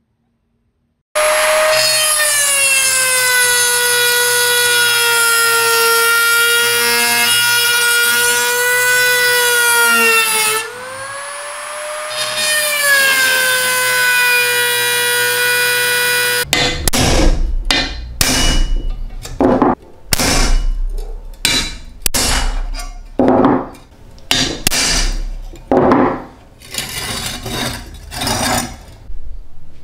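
Cordless rotary tool with a grinding stone running at a steady high whine as it grinds rust off a steel mower bracket; its pitch sags under load around the middle and recovers. It then stops abruptly, and a series of irregular short scraping strokes of hand work on the metal follows.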